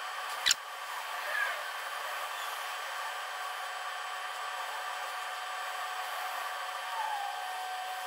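Steady hissing background noise, with one sharp click about half a second in.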